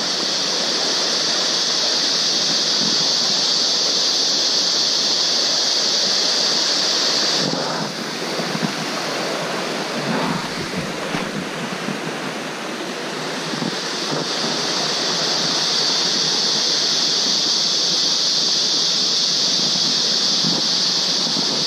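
Steady rushing of a small forest stream, with a continuous high-pitched hiss over it that cuts out suddenly about seven seconds in and comes back gradually a few seconds later. A few light knocks sound while it is gone.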